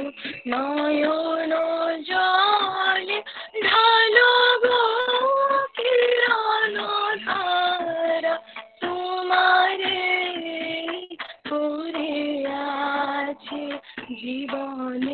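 A woman singing a song solo in long, held, slightly wavering phrases with brief pauses for breath. She sounds thin and band-limited, as heard over a video-call link.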